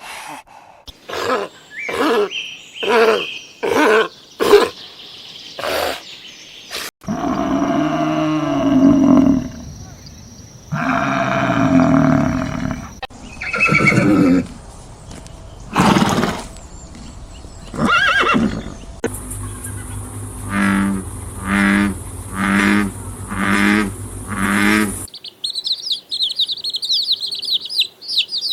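A run of different animal calls, one after another: a quick series of short calls, then two long held calls, then a few more calls and about six evenly spaced calls, about one a second. Birds start chirping near the end.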